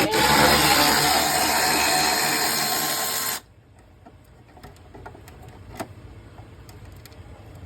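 A power tool motor running steadily for about three and a half seconds, then stopping suddenly, followed by a few faint clicks.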